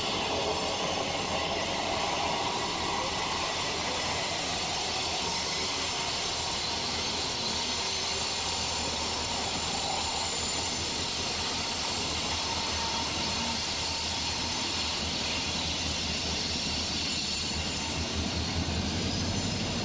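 EMD SD40-2 diesel-electric locomotives passing close by, their turbocharged 16-cylinder two-stroke engines running with a steady drone. A low rumble grows louder near the end as another unit comes by.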